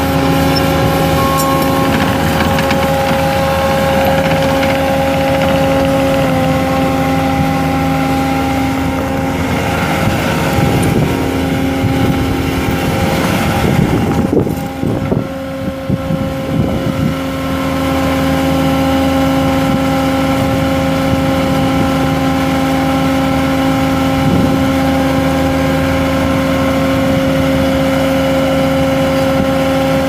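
Bobcat T770 skid steer's Kubota V3800 four-cylinder turbo diesel running steadily, with a steady whine over the engine note. About halfway through the sound is unsettled and drops for a few seconds, then the engine settles back to its steady run.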